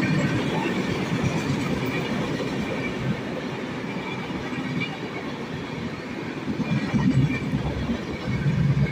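LHB passenger coaches of an Indian Railways express rolling past on the track: a steady rumble of wheels on rail, swelling louder near the end.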